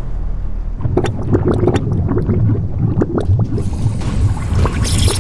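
Bubbling, gurgling molten-lava sound effect: a low rumble full of popping blips, growing denser about a second in.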